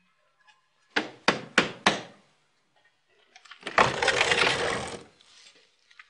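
Four quick knocks on a wooden door, then a longer noisy scrape lasting about a second and a half.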